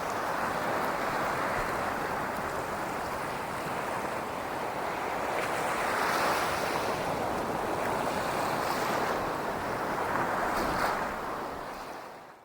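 Sea surf washing in: a steady rushing that swells a couple of times and fades out near the end.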